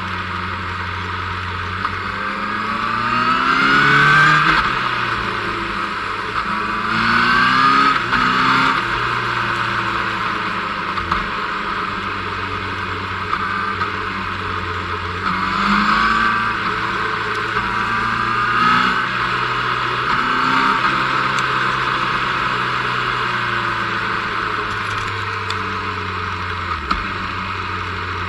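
Motorcycle engine accelerating out of bends, rising in pitch and falling back about five times, over steady wind noise from riding at speed.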